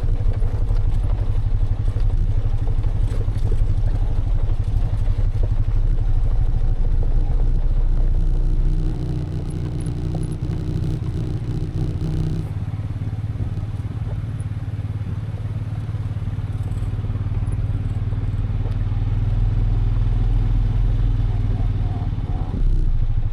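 Vehicle engine running steadily under way, with fast, even firing pulses; it eases off about nine seconds in and settles to a steady lower pitch a few seconds later.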